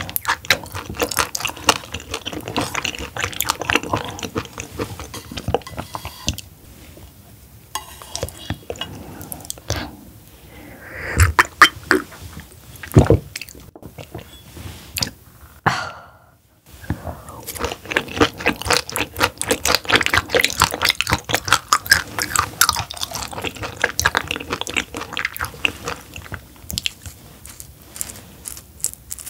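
Close-miked chewing of raw roughscale sole sashimi, a bone-in cut. It comes as a dense run of wet, crisp clicks and smacks, with a brief silent break a little past the middle.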